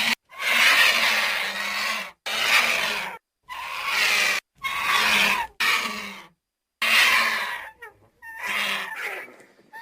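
Vulture calling: a run of about seven harsh, hoarse calls, each up to a second or two long, separated by short breaks.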